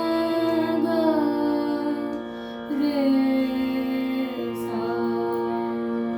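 A woman singing a slow bada khayal phrase in raag Yaman, holding long notes that glide down in pitch, over a steady drone accompaniment.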